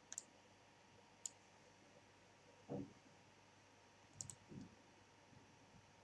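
A few faint computer mouse and keyboard clicks, some in quick pairs, over near-silent room tone, with one soft low thump near the middle.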